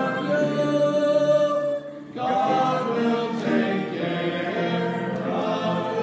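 A congregation singing a hymn together without accompaniment, in held notes, with a brief break for breath about two seconds in.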